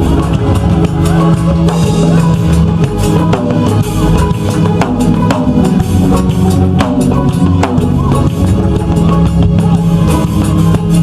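Loud instrumental music with a full drum kit (bass drum, snare and rimshots) over a steady sustained bass and keyboard pad with melodic lines.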